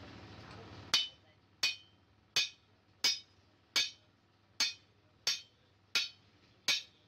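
Nine even hammer blows on steel at the anvil, about one every 0.7 seconds, each a sharp, bright clink with a short ring: a hammer driving a steel pin set through a forged chopper blade.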